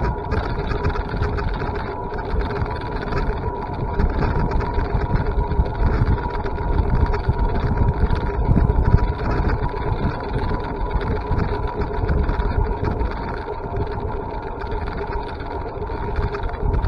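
A vehicle on the move: a steady motor whine over a low, fluctuating wind and road rumble.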